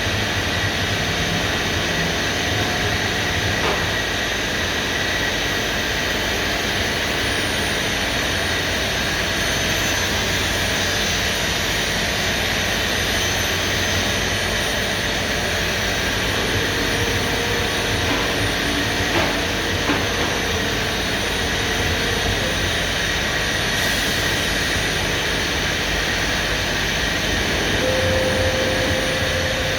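4-axis CNC router running: a steady, continuous machine noise with a high spindle whine on top. A faint high tone slides down and then holds steady about six seconds in.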